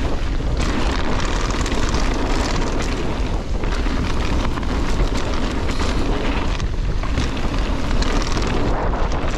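Wind buffeting the rider's camera microphone over a mountain bike's tyres rolling and crunching on loose gravel, with the bike rattling throughout as it descends.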